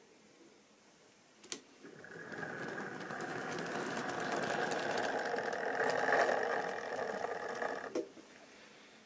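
OO-gauge model train running past on the track: the locomotive's small electric motor whirring and the wheels rattling over the rails, growing louder to a peak and then stopping abruptly with a click about eight seconds in. A single sharp click comes just before it starts moving.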